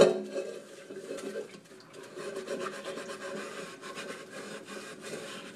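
A sharp knock at the start, then irregular scrubbing and rubbing as kitchen things are washed by hand.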